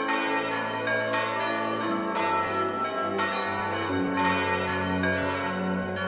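Church bells in a brick bell tower swinging and ringing, with several bells striking in turn about once a second and their tones ringing on over one another.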